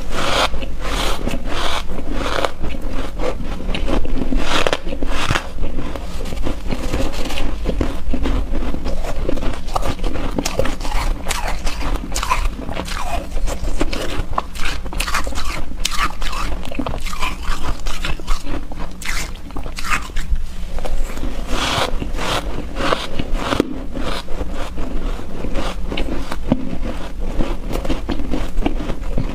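Close-miked biting and chewing of soft, fluffy shaved 'cotton' ice: a steady run of soft crunches.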